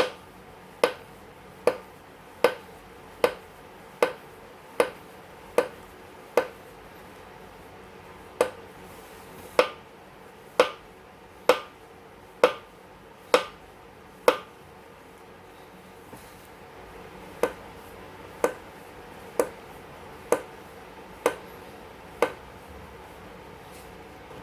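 Yesoul S3 spin bike clicking sharply from the left pedal area as it is pedalled, a single click a little under once a second in three runs with short pauses between: a fault that appeared as soon as the newly assembled bike was first ridden.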